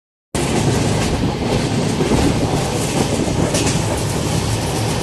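Passenger train running along the track, heard from inside a coach at an open barred window: a steady noise of the wheels on the rails and the moving carriage, cutting in just after the start.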